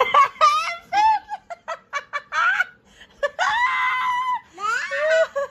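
A young child squealing and shrieking with laughter: a quick run of short, high squeals, then one long shriek about three seconds in, and more rising squeals near the end.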